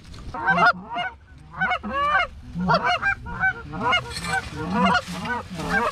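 Canada geese honking, a rapid run of short honks and clucks, several a second.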